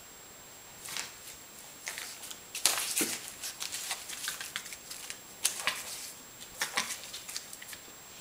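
Puppy handling torn magazine paper: irregular short rustles and crinkles of paper with small clicks, busiest about three seconds in and again near the end.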